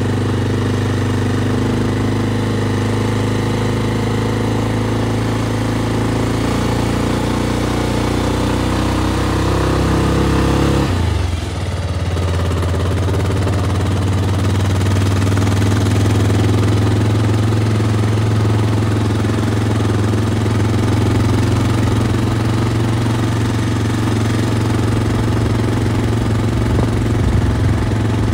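Bajaj Pulsar 220F's single-cylinder engine running while riding; the engine note climbs slowly, then drops suddenly about eleven seconds in and holds steady at the lower pitch.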